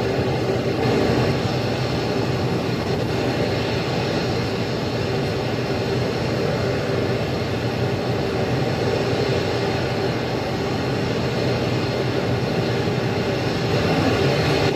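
RS-25 liquid-fuelled rocket engine firing continuously in a static test on a test stand: a steady, unchanging rushing noise across the whole range, with no breaks.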